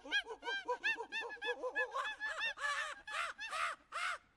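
A squeaky, high-pitched babbling puppet voice: a rapid run of short gibberish syllables, each rising and falling in pitch, at about six a second, stopping shortly before the end.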